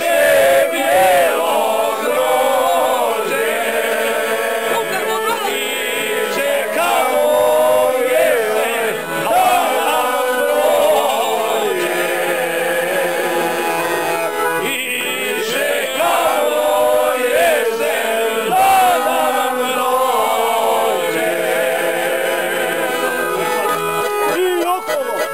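A group singing a folk song together, men's voices to the fore, with an accordion playing along.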